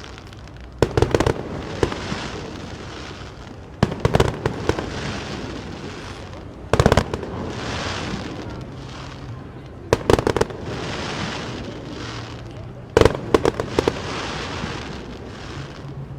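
Fireworks going off in a display: a cluster of several sharp bangs about every three seconds, five times, each trailing off into a hiss.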